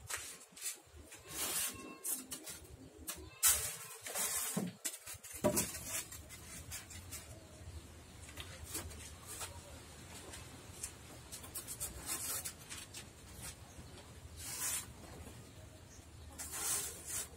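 Utility knife blade cutting through a styrofoam sheet: a series of scratchy strokes, some lasting a second or more.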